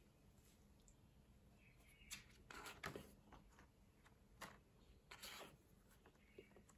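Near silence, with a few faint, brief rustles and taps between about two and five and a half seconds in.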